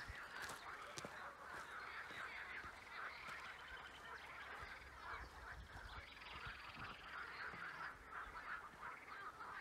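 Faint, steady chatter of a flock of geese honking and calling.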